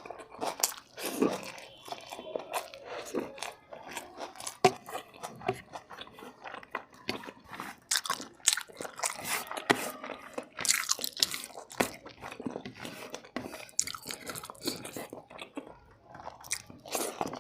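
Close-miked eating of biryani: chewing and biting with many irregular wet clicks and crunches, and lip and mouth noises.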